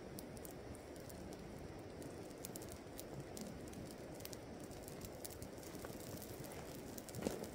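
Small campfire crackling, with faint scattered pops and a louder snap near the end, over the steady low rush of a river.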